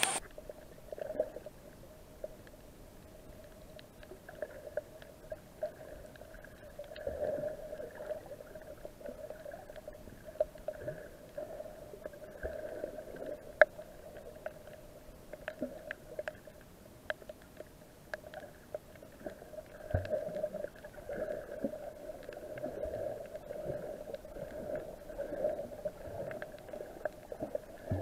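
Muffled underwater sound picked up through a camera's waterproof housing while free diving: a steady low hum with scattered clicks and small knocks, one sharper click about halfway through.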